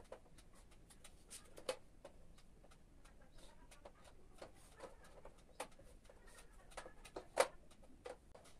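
Faint, irregular clicks and taps of a set square and ruler being placed and slid against a whiteboard while a marker draws lines, with a sharper knock about two seconds in and a louder one near the end.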